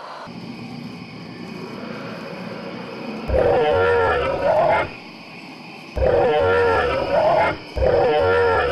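Recorded dinosaur roars: a low rumble swells for about three seconds, then three long, loud, wavering roars follow one after another.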